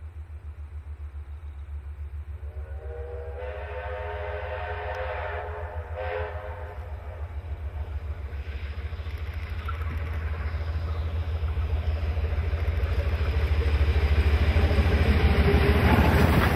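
Steam locomotive 3237, a NSW C32 class 4-6-0, hauling a passenger train, its exhaust beating rapidly and growing louder as it approaches. About three seconds in it sounds its multi-tone steam whistle for about three seconds. It is loudest near the end as the engine and tender pass close with the rumble of wheels on the rails.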